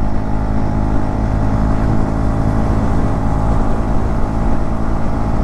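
KTM Duke 250's single-cylinder engine running at a steady pitch while cruising in fifth gear at highway speed, heard from the rider's helmet camera with wind rushing over it.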